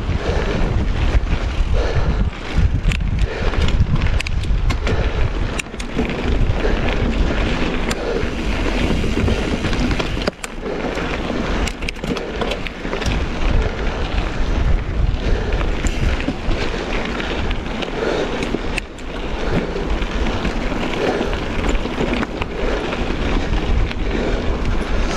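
Wind buffeting the action-camera microphone as a mountain bike rolls along a rocky dirt singletrack, with tyres crunching over gravel and frequent short clicks and rattles from the bike.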